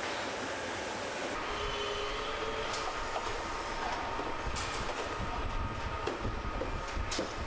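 Car assembly-line machinery running: a steady mechanical din with a low rumble, faint whining tones and a few sharp clicks and clanks.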